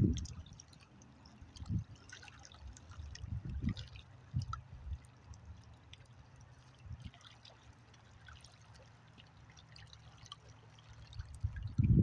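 Small waves lapping and trickling against a rocky lakeshore, with scattered faint splashes and drips. A few brief low rumbles buffet the microphone, and a louder one sets in near the end.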